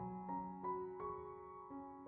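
Slow, gentle piano music: single notes struck a few times a second over held lower notes.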